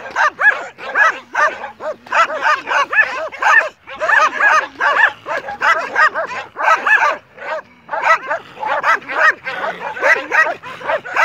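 A pack of stray dogs barking nonstop, many short barks overlapping several times a second. The barking is typical of dogs rousing each other to close in and attack.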